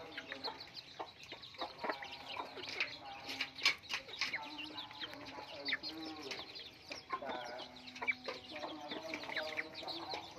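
Chickens clucking as they feed on scattered grain. Short low clucks are mixed with many quick high calls and scattered sharp clicks.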